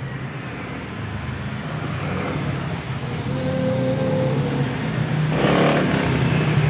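A motor vehicle engine running with a steady low hum that grows louder, with a short rushing noise about five and a half seconds in.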